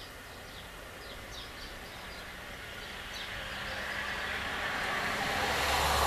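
A vehicle passing on the street, its engine and tyre noise growing steadily louder to a peak near the end. Small birds chirp in short, repeated high notes during the first half.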